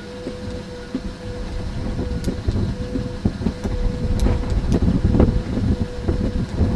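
Low, uneven rumble on the microphone with a faint steady hum and a few scattered clicks, growing louder about halfway through.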